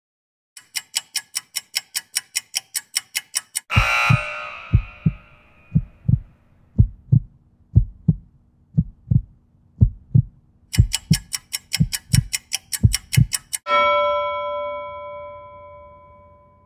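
Interval-timer sound effects. Fast ticking, about seven ticks a second, counts off the last seconds of the work interval and ends in a crash-like signal. Heartbeat-like low thumps run through the rest period, the ticking returns for its last seconds, and a ringing bell tone near the end signals the start of the next work interval.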